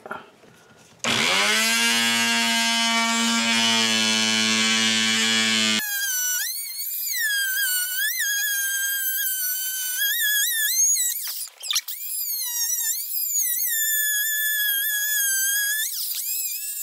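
Oscillating multi-tool cutting back the wooden edge of a cabinet side. It comes up to speed about a second in with a low steady hum, then switches abruptly to a high whine that wavers and dips as the blade bites into the wood. The whine cuts out briefly a little past halfway.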